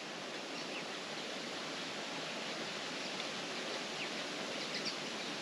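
Steady, even hiss of outdoor background ambience, with a few faint, short high ticks scattered through it.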